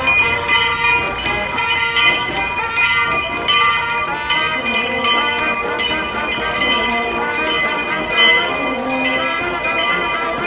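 Church bells pealing, struck rapidly about twice a second over a steady ringing tone.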